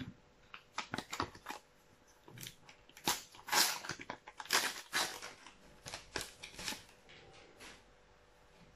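A foil sticker packet being torn open by hand, its wrapper crinkling and crackling in irregular bursts that fade out near the end.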